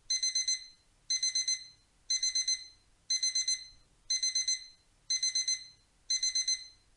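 Digital alarm-clock beeping marking the end of the countdown: bursts of four quick, high-pitched beeps, repeated once a second.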